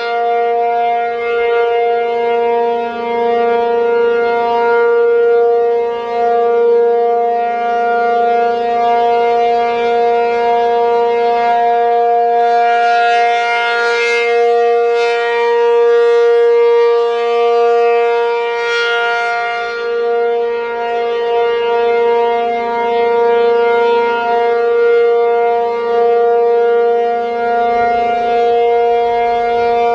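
ACA P-50 outdoor warning siren sounding a steady alert signal, held at one pitch with many overtones, its loudness and brightness swelling and fading. It is running the full alert because it missed its cancel tones.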